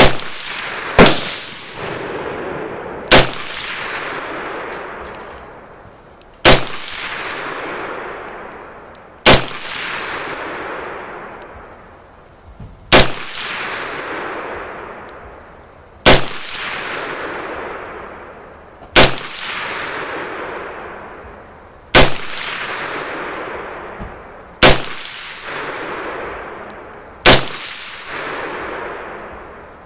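M1 Carbine firing .30 Carbine rounds in slow semi-automatic fire: eleven sharp shots, the first two about a second apart, then one every three seconds or so. Each shot is followed by a long echo that fades over a couple of seconds.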